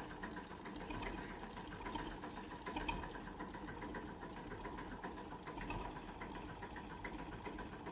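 Faint engine running steadily with a fast, even mechanical clatter.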